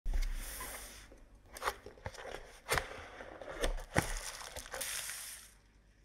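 Packaging being handled and opened in an unboxing: crinkling and rustling of wrapping material, with several sharp clicks and knocks in between.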